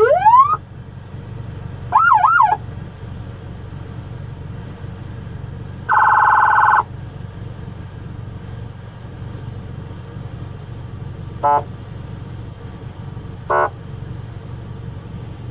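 Yhaavale electronic police siren giving short test bursts through its speaker. First a rising wail at the start, then a quick warbling yelp about two seconds in. A steady, buzzy horn tone of under a second follows near the middle, and two brief chirps come near the end. A steady low hum runs beneath.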